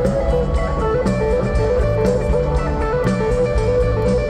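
Rock band playing live in an instrumental passage: electric guitar lines over bass and drums with a steady beat, heard from the audience.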